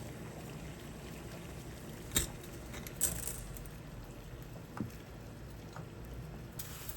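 A few light clicks and knocks, with a short hiss near the end, over a steady low hum.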